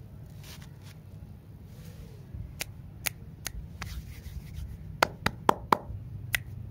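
Hands handling plastic-wrapped lollipops: scattered sharp taps and clicks, with a quick run of four louder ones about five seconds in.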